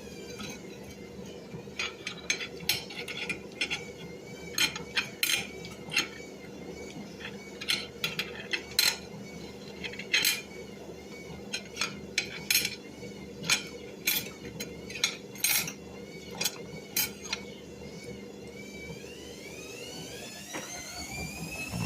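Cutlery clinking and scraping on a plate in irregular sharp clicks, over a steady low hum.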